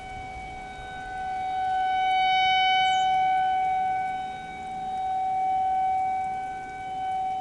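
Federal Signal 2001-130 rotating outdoor warning siren sounding a steady single tone. It swells and fades in loudness as it turns, loudest about two and a half seconds in and again near the end.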